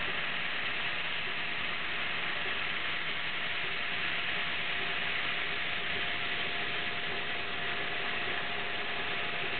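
CNC laser cutter cutting 3/8-inch stainless steel plate: a steady hiss, with a faint steady tone underneath.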